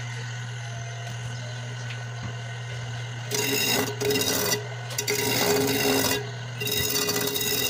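An electric motor spinning a sanding disc runs with a steady low hum. About three seconds in, a hard ebony block is pressed against the disc, giving a loud rasping grind in several passes with brief breaks between them.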